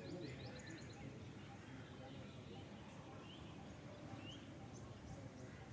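Faint small-bird chirps over low outdoor background noise: a quick run of chirps at the start, then a few single rising notes and short chirps.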